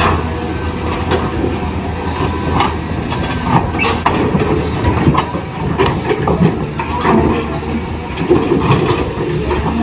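Toy RC excavator working: small electric gear motors whirring with an irregular clatter of plastic parts and tracks.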